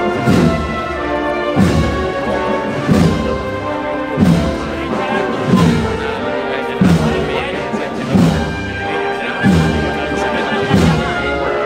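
A Holy Week procession band playing a slow processional march. Sustained brass chords sound over a heavy drum beat that falls about every 1.3 seconds.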